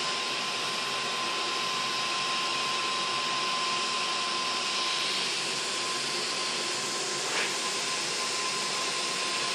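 Multi-nozzle stove burner fed with compressed air, HHO gas and hexane: a steady hiss of gas jets and flame from the nozzles, with a faint steady tone underneath.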